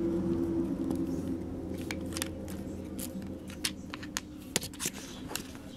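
Light, scattered clicks and taps of hands handling the plastic and metal parts of an RC drift car, about a dozen from two seconds in, over a steady low hum that slowly fades.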